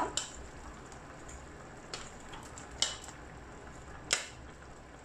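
A spoon knocking and scraping against a ceramic bowl as pieces of dried fish are pushed off into a clay pot of curry: four short, sharp clinks about a second apart.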